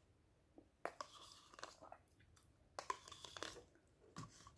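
Quiet eating sounds: a metal spoon scraping and clicking in a plastic yogurt cup, and wet mouth sounds as yogurt is taken off the spoon, in two short bursts about a second and three seconds in, with a soft thump near the end.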